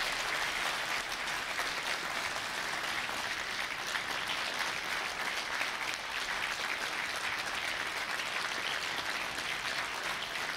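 A large hall audience clapping: sustained, steady applause from a standing crowd.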